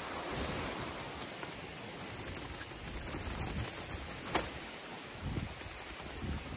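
A grill net waved hard to fan a campfire, making soft irregular whooshes over a steady hiss of wind and surf. A single sharp click about four seconds in.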